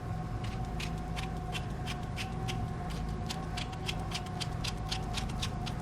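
Light rapid clicking, about four clicks a second, of a precision screwdriver turning a tiny T4 Torx screw as it is tightened into a phone's frame, over a steady electrical hum.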